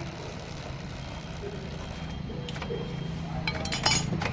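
Metal hand-tool clinks, a few scattered and then a quick cluster near the end, as an 8 mm bolt on a Hero Splendor Plus BS6 engine's timing-chain side is undone with a socket. A steady low engine-like hum runs underneath.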